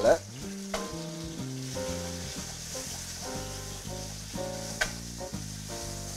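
Sardine fillets frying in hot olive oil in pans on a gas range, a steady sizzle, with two light clicks. Background guitar music plays throughout.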